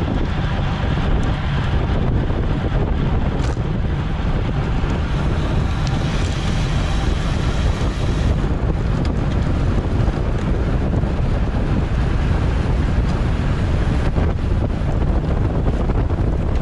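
Wind buffeting the microphone of a camera carried at racing speed in a bicycle criterium: a loud, steady, deep rush with no break.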